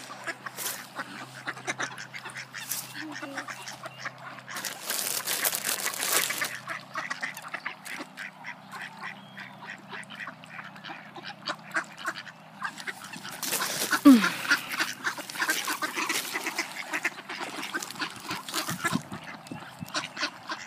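Mallard ducks quacking over and over, many short calls overlapping. Two stretches of louder noise come through, about five seconds in and again around fourteen seconds in.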